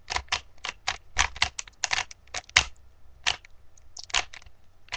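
Standard 3x3x3 Rubik's Cube being turned by hand: quick, irregular plastic clicks and clacks as the faces snap round, several a second, some in rapid clusters.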